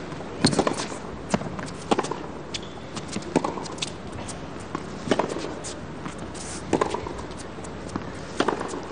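Tennis rally on a hard court: rackets striking the ball and the ball bouncing, with a loud hit about every one and a half to two seconds and softer knocks between.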